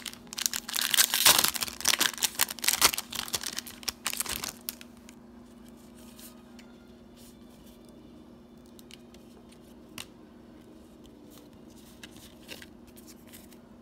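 Foil booster pack of trading cards being torn open and crinkled for about four and a half seconds, then only a few faint clicks over a steady low hum.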